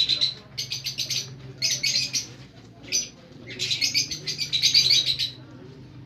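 Caged parrots chirping in repeated bursts of rapid, high-pitched chirps, about four bursts with short pauses between them, the longest lasting about a second and a half near the end.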